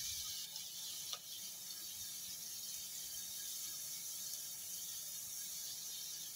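Sliced onions sizzling faintly in hot oil in a pot, stirred with a silicone spatula, with a single light knock about a second in.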